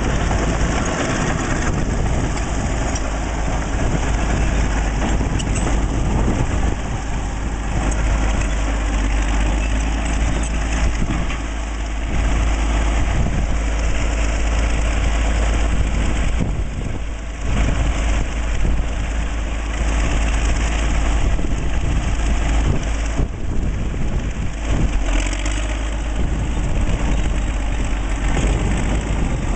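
1940s Caterpillar D8 bulldozer's diesel engine running steadily, with a few brief dips in loudness.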